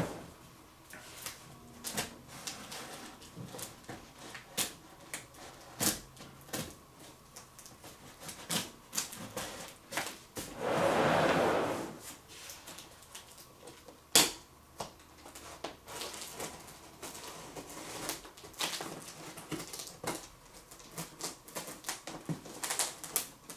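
A cardboard statue box being opened and handled: scattered clicks, taps and rustles of cardboard, with a longer scraping or tearing swell about eleven seconds in and a sharp knock a few seconds later.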